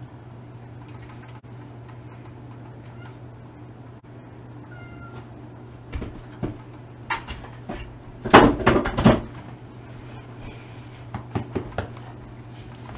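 A cat meowing faintly about five seconds in, then a cluster of sharp knocks and clatters as a Siberian husky's paws shift on the stacking box, loudest around eight to nine seconds in, with a few more knocks near the end.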